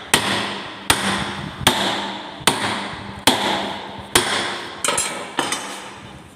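Hammer blows on a steel trimming die, eight strikes at an even pace of a little over one a second, each with a short metallic ring. The blows drive the die's blades through a sheet of paper to test the blade clearance.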